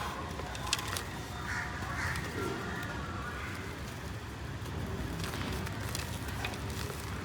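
Dry claypot mud crumbling by hand, with sharp crackles here and there. Crows caw several times in the background during the first few seconds.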